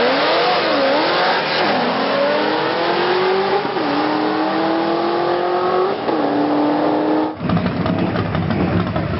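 Drag cars accelerating hard down the strip, the engine pitch climbing and dropping back at each gear shift, about four times. About seven seconds in, the sound cuts abruptly to a lower, rougher engine rumble.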